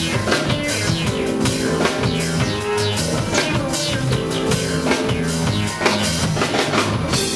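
Band music: drum kit, bass line and guitar playing a steady groove.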